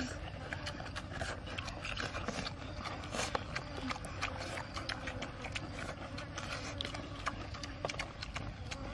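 A person chewing and smacking while eating, close to the microphone: many irregular wet smacks and clicks, several a second.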